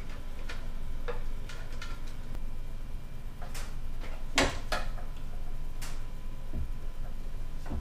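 Scattered clicks and knocks of an outboard's lower cowling being handled and pressed into place against the motor, the loudest knock about halfway through, over a steady low hum.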